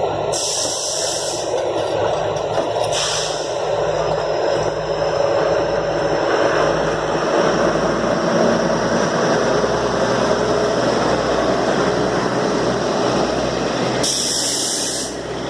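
Matheran toy train running, a steady rumble of wheels and engine. Short bright hisses come about half a second in, again about three seconds in, and near the end.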